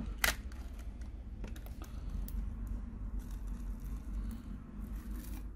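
Plastic opening pick scraping along the edge of a Samsung Galaxy Note 20 Ultra's glass back cover, cutting the adhesive. There is one sharp click about a quarter second in, then lighter clicks and scrapes as the back cover comes free, over a low steady hum.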